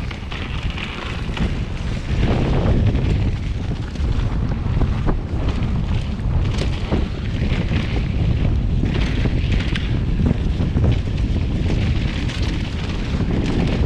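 Wind buffeting a chest-mounted action camera's microphone as a mountain bike rolls along a dirt trail, with tyre noise and scattered clicks and knocks from the bike over the bumps.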